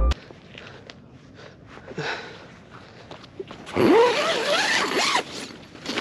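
A zipper being pulled, a short tug about two seconds in, then a longer, louder scratchy pull that rises and falls in pitch as the speed changes.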